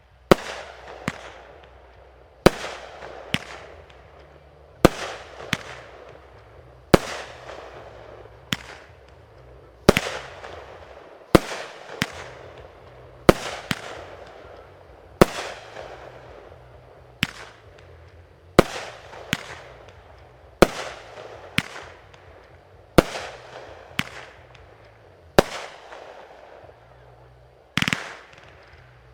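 Aerial fireworks shells bursting in a steady succession, more than twenty sharp bangs about one to two seconds apart, each trailing off in a fading hiss.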